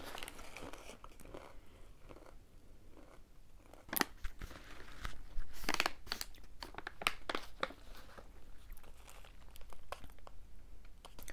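Crunchy chewing of a granola-style nut snack mix close to the microphone: irregular crunches, the loudest bites about four and six seconds in.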